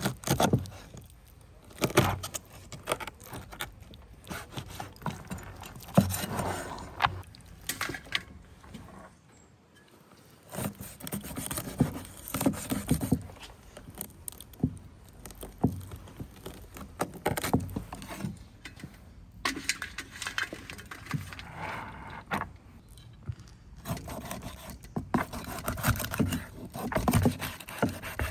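Irregular clinks, knocks and scrapes of hands-on food preparation, coming in short clusters with a brief lull partway through.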